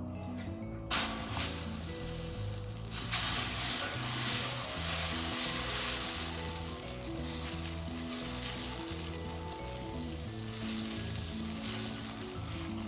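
Frying sizzle of a pesarattu (green gram dosa) cooking on a hot oiled griddle. It starts suddenly about a second in, is loudest around three seconds in, then eases to a steady sizzle. Background music plays underneath.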